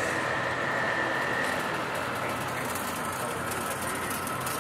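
Steady background noise of car engines running among a crowd, with a faint steady high tone that stops about a second and a half in.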